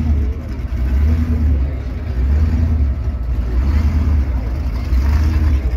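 Monster truck engines running with a deep, steady rumble, the loudness swelling and easing in surges as they are revved.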